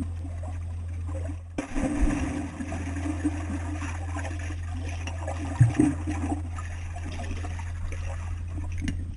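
Sound picked up by a camera submerged in a swimming pool while a dog paddles at the surface above: muffled swirling and bubbling water over a steady low hum, with a brief break about a second and a half in.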